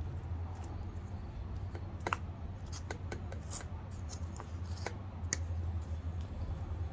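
A small hand trowel and fingers scraping and scooping soil in a plastic bucket: scattered short scrapes and clicks over a steady low hum.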